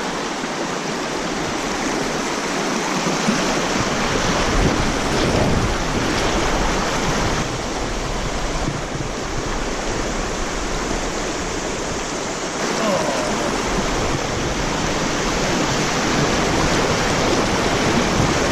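Mountain creek rapids: a steady, loud rush of whitewater around an inner tube running the rapids.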